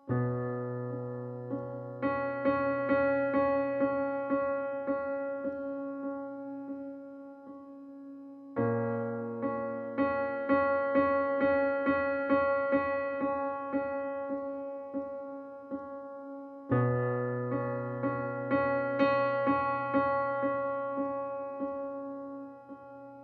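Slow, gentle piano music: a deep chord is struck about every eight seconds, three times in all, with a steady run of notes about three a second over it.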